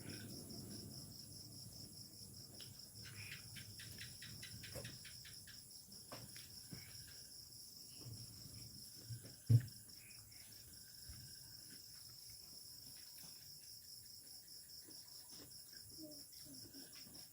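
Insects chirping steadily in a fast, even pulse, with scattered small clicks and one sharp knock about ten seconds in.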